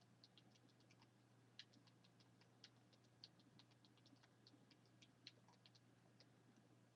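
Near silence with faint, irregular light clicks and ticks, several a second.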